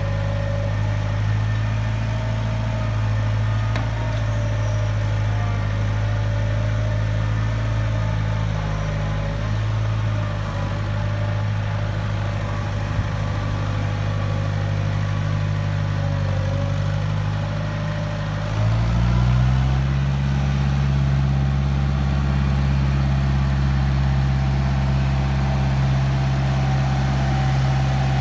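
International (IH) backhoe-loader's diesel engine running steadily; about two-thirds of the way in its note steps up and holds at the higher speed.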